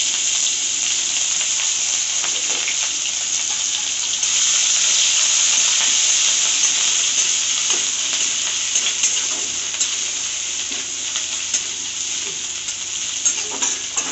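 Grated ginger and green chillies frying in hot mustard oil in a metal kadhai: a loud steady sizzle that swells a few seconds in and eases toward the end. A metal spatula scrapes and clicks against the pan as it is stirred, more often near the end.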